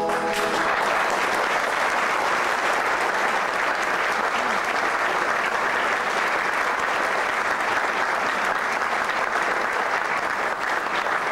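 Audience applauding steadily. The ensemble's last held chord dies away in the first moment as the clapping starts.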